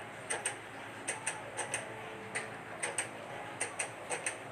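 Light ticking: short sharp clicks, mostly in pairs, about one pair every two-thirds of a second, like a clock's tick-tock.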